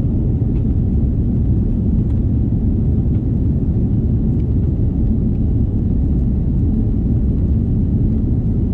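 Steady low rumble of an Airbus A330's engines and airflow heard inside the passenger cabin, with a few faint ticks above it.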